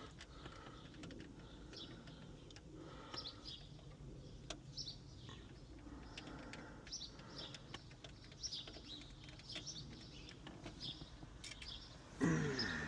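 Faint birds chirping in the background, short high calls scattered throughout, with a few light clicks from the screwdriver working the radio unit's screws.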